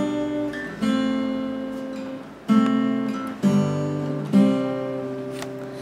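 Acoustic guitar playing a song's intro: single strummed chords of a C–G/B–Am–F–G–C progression, struck about once a second, five times, each left to ring and fade.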